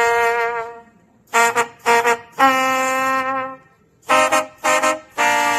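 Recorded music led by a brass instrument. Groups of short, detached notes alternate with single held notes, and there are short silences between the phrases.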